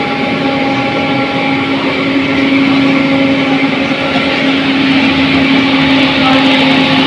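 Small belt-driven rice husking machine running under load as paddy feeds through it, with a steady motor hum over a constant rush of grain. It grows slightly louder about two and a half seconds in.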